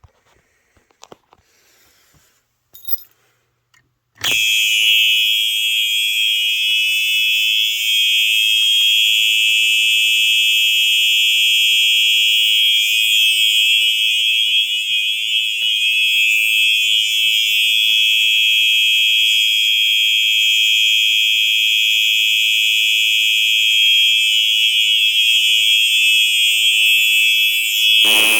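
A few faint clicks, then about four seconds in a Simplex 4903 horn strobe's horn starts sounding continuously: a loud, steady, high-pitched electronic tone.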